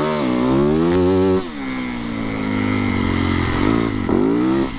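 Yamaha YZ450FX's single-cylinder four-stroke engine revving. The revs climb quickly at the start, hold for about a second and a half, then fall back to a steady lower note. Near the end come two short rises and falls.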